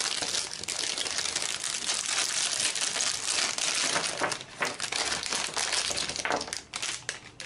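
Plastic packaging crinkling and rustling without a break as it is handled and unwrapped, dying away near the end.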